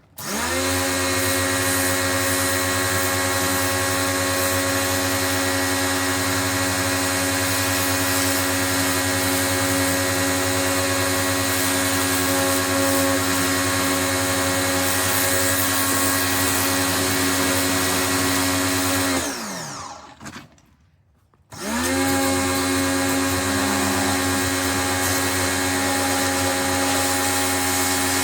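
Electric pressure washer's motor and pump running with a steady hum. About two-thirds of the way through, the motor winds down to a stop with falling pitch. It starts up again about two seconds later and runs steadily, as such a washer cuts out when the spray-gun trigger is let go and restarts when it is pulled.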